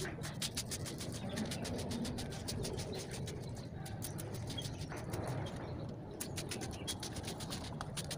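Hand trigger spray bottle squirting in quick repeated pumps, several a second, each a short hiss, with a couple of brief pauses.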